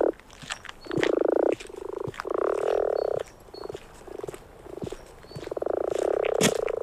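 Frogs croaking in a marsh: a few long, low, rattling croaks of about a second each, with faint clicks in between.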